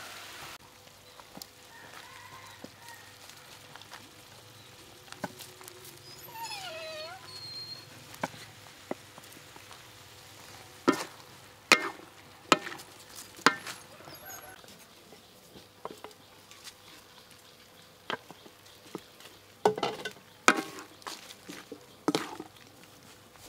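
Wooden spatula scraping and knocking against a steel wok as vegetables are stir-fried, over a faint sizzle. The sharp knocks come in two clusters, about halfway through and near the end, and a brief gliding animal call is heard about a quarter of the way in.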